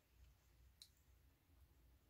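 Near silence: low room hum with one faint, short click a little under a second in.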